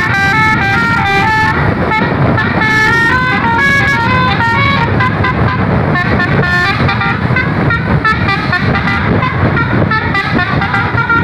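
Bus's Basuri 'telolet' musical horn playing a tune of quick stepped notes in repeated phrases, over a steady low rumble of engine and road noise.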